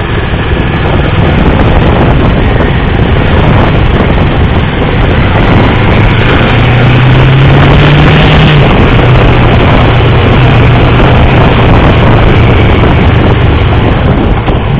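Motorcycle engine running at speed on a circuit, with heavy wind rush over the onboard microphone. The engine note steps up for a couple of seconds about halfway through, then drops back.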